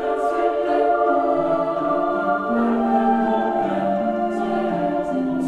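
Choral music: voices singing held chords, the notes moving from one pitch to the next every second or so.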